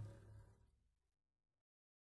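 The last of a song's music fading away within about half a second, then silence.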